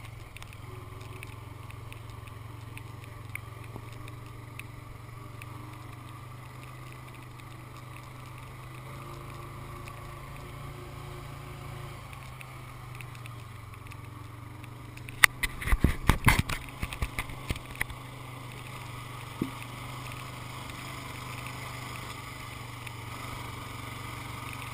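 Honda ATV engine running steadily while riding on a dirt trail, a low even drone. About fifteen seconds in, a quick burst of loud sharp knocks and rattles lasts a couple of seconds, with one more knock shortly after.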